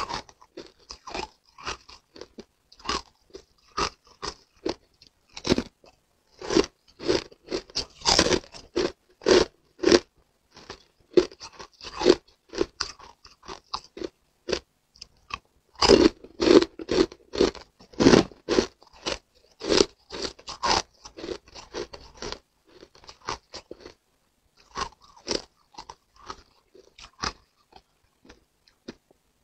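Hard frozen ice crunched and chewed close to the microphone: quick, irregular runs of sharp cracks and crunches, with a short lull about two-thirds of the way through.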